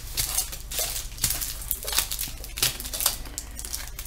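Small plastic bags of round resin diamond-painting drills being handled and set down on a table: irregular crinkling of plastic with light clicks and taps.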